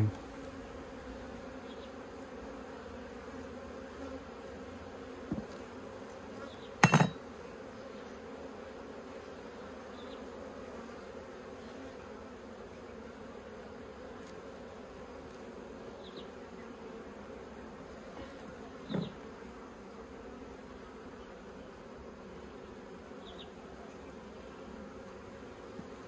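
Honeybees buzzing in a steady hum around an open top bar hive. A few knocks of the wooden top bars being set back together come through, the loudest about seven seconds in.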